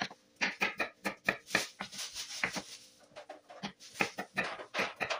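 Chef's knife slicing garlic cloves on a plastic cutting board: quick, irregular taps of the blade against the board, several a second.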